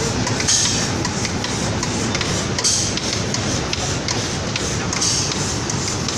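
Automatic paint spraying line machinery running steadily, with a burst of air hiss about every two seconds and scattered small clicks.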